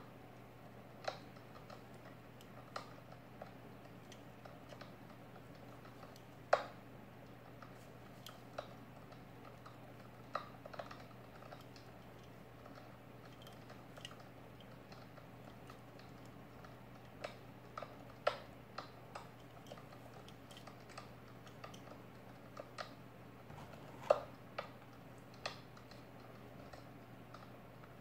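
Gloved fingers handling a small die-cast metal toy car: sparse, irregular light clicks and taps, a few sharper ones, over a faint steady hum.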